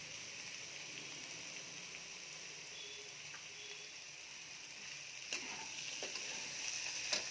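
Vegetables and poppy-seed and coconut paste sizzling steadily in a kadai over low heat, with a few light scrapes of a spatula against the pan in the last couple of seconds.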